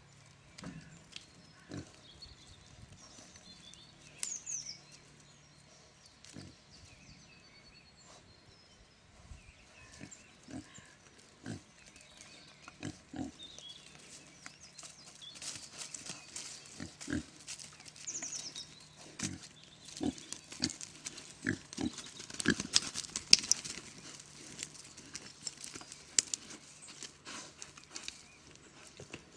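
Pigs grunting now and then while they root about, among many small clicks and snaps that grow busier through the second half.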